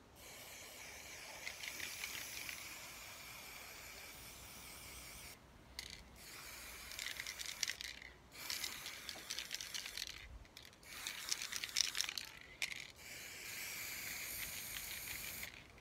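Aerosol spray-paint can spraying in about five long bursts with brief pauses between them. The hiss crackles during the middle bursts.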